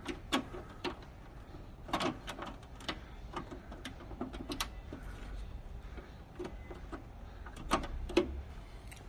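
Plastic vent being pressed and fitted back into the side cover of an exercise machine's flywheel housing: irregular light plastic clicks and knocks, a few sharper ones among them.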